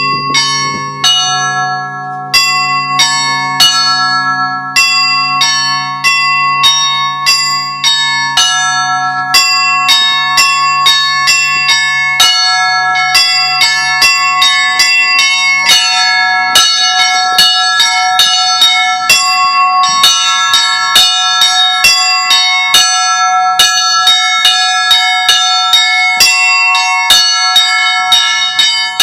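Russian Orthodox cathedral bells rung for the evening peal after a service: rapid, overlapping strikes on small and mid-sized bells, several a second, each left ringing. Beneath them the low hum of a larger bell dies away about halfway through.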